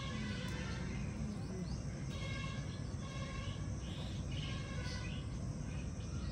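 Outdoor background noise: a steady low rumble with faint, short high-pitched calls every second or so.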